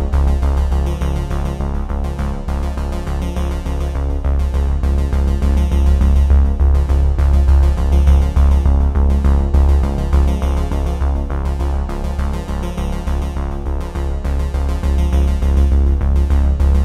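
Instrumental background music with a steady, pulsing bass line and sustained tones.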